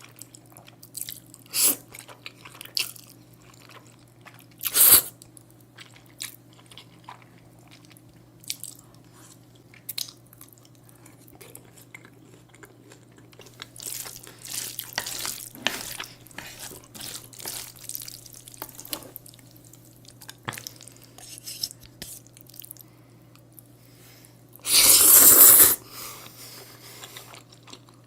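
Close-miked eating of black bean noodles (jjajangmyeon): scattered wet chewing and mouth clicks, a busier stretch of slurping about halfway through, and one loud slurp lasting about a second near the end.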